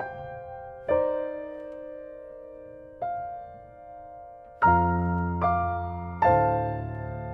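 Solo piano playing a slow piece: chords struck every second or two and left to ring and fade, with deep bass notes joining about halfway through.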